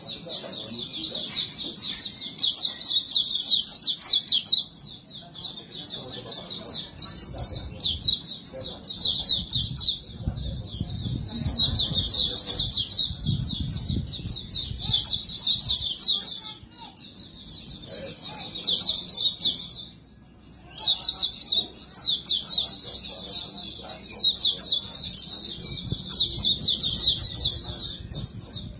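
White-eye (pleci) singing a long run of fast, high twittering phrases, with a short break about two-thirds of the way through.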